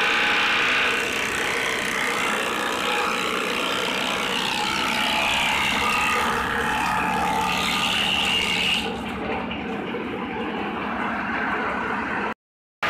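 Small forage chopper running, its spinning blades shredding bundles of grass stalks fed into the hopper: a steady, loud machine noise with a dense rasping hiss of cutting on top of it. The cutting noise eases slightly about nine seconds in.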